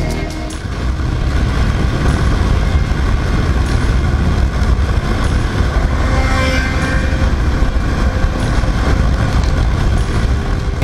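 Yamaha MT-07 motorcycle's parallel-twin engine running at steady cruising speed, under a heavy, continuous wind rush on the action camera's microphone.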